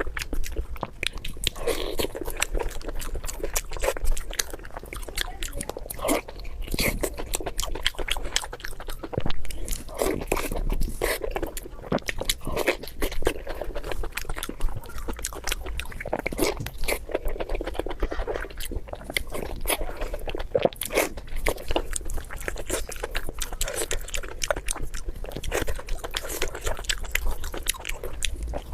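Close-miked eating: continuous chewing with many short, crisp crunches and wet mouth clicks.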